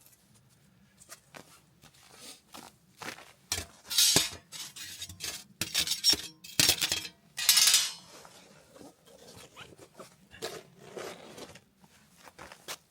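Irregular clinks, knocks and scrapes of things being handled, with louder rustling or scraping bursts about four seconds in and again between six and eight seconds.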